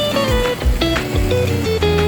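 Music with a guitar playing, changing notes several times a second.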